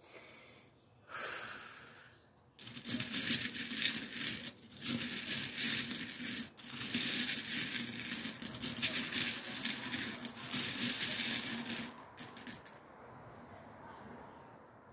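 A pile of small metal charms in a glass dish, stirred and sifted by hand: steady jingling and clinking that starts about two and a half seconds in and stops about twelve seconds in.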